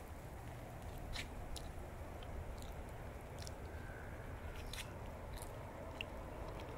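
Wind rumbling on the microphone, with faint, irregular crunchy crackles scattered through it.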